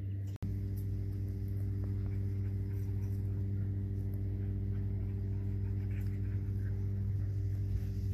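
A steady low mechanical hum, like a motor running, that cuts out for an instant about half a second in and then carries on unchanged.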